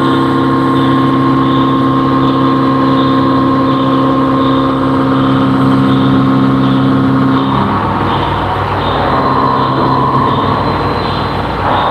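CNC vertical machining centre running, with a steady spindle whine over a constant hum. About two-thirds of the way through, the steady tones give way to a rougher, noisier sound, and the steady tones come back at the very end.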